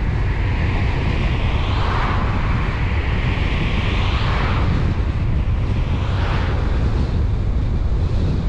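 Steady road and wind noise from a car on the move: a deep rumble under a hiss that swells up and falls back three times, about 2, 4 and 6 seconds in.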